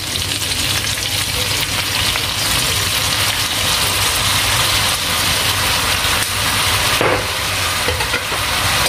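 Chicken pieces sizzling steadily as they sauté in a hot wok, with fish sauce being poured in over them. A low steady hum runs underneath, and a brief click comes about seven seconds in.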